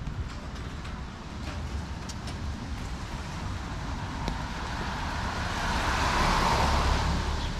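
A car passing on a rain-wet street, its tyre hiss building over several seconds, loudest near the end, then easing off.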